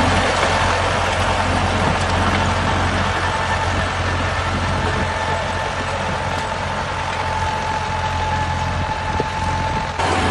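Tractor engine sound idling steadily: a low drone with a thin steady whine above it. There is a short break near the end.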